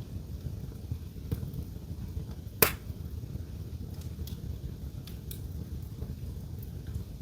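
Wood fire crackling in a fireplace: scattered small pops and one loud, sharp crack about two and a half seconds in, over a low, steady rumble.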